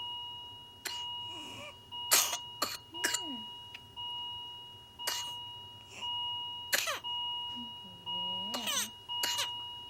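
A child coughing in repeated sharp bursts, roughly one a second, with high gasping breaths drawn in between: the paroxysmal cough of whooping cough (pertussis). A steady high electronic tone runs underneath.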